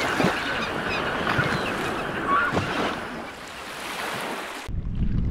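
A wash of surf-like noise with a few short honking bird calls. About four and a half seconds in it cuts off abruptly, leaving only a low rumble.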